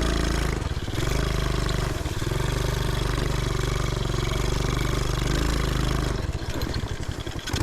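A 125cc engine on a homemade reverse trike runs steadily under throttle over rough ground. It drops off briefly about half a second in and again near the end as the throttle eases.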